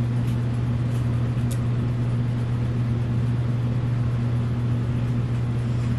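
A steady low electrical hum, with a few faint clicks in the first two seconds.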